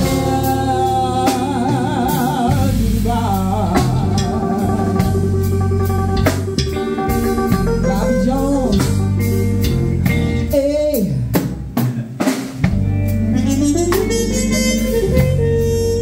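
Live blues band playing: a drum kit with snare and rimshot hits under a bass line and a sustained, wavering lead melody. The music thins out briefly about two-thirds of the way through, then comes back in full.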